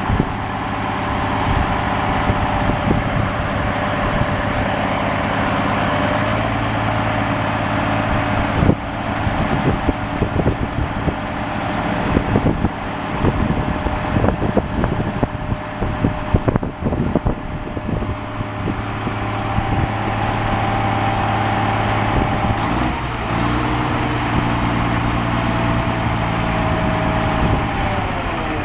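Kenworth T800B dump truck's Caterpillar C12 diesel engine running steadily with a thin steady whine over it while the hoist lowers the raised dump body. A scatter of sharp knocks comes through the middle, and near the end the pitch drops away.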